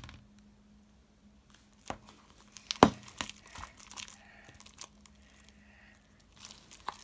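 A spoon stirring slime in a mixing bowl: soft stirring sounds with a few sharp knocks of the spoon against the bowl, the loudest a little under three seconds in.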